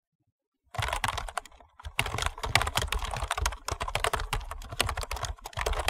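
Rapid typing on a computer keyboard: a dense run of key clicks starting just under a second in, with a brief pause shortly before the two-second mark.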